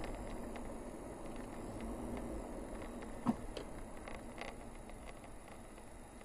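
Toyota car driving slowly on a paved road, heard from the dashboard camera inside the cabin: a low, steady engine and tyre rumble that grows quieter near the end as the car slows. About three seconds in there is a single sharp knock, with a few faint clicks around it.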